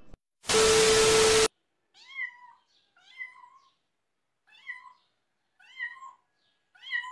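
Domestic cat meowing: five short, high meows about a second apart. Before them, about half a second in, comes a loud one-second burst of hiss with a steady tone, which cuts off suddenly.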